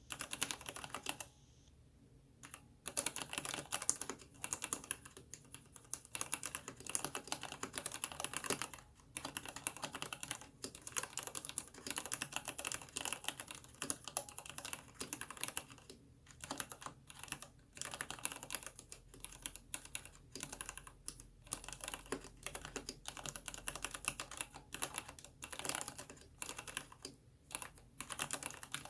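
Typing on a mechanical keyboard with Cherry MX Black linear switches, an aluminium case and Cherry PBT keycaps: fast, continuous keystrokes with a short pause about a second in.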